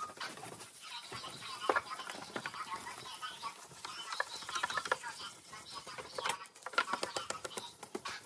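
Hand-held 2000-grit wet sandpaper rubbed back and forth over the wet plastic lens of a Code 3 XS8000 lightbar, with Windex as the lubricant. It gives an irregular scratchy rubbing with short squeaks.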